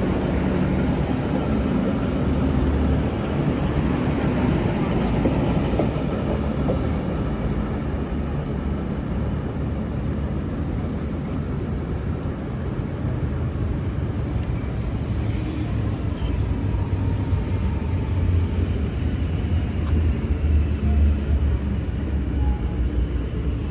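V/Line VLocity diesel multiple unit running at a station, with a steady low engine and rail rumble that swells a little near the end.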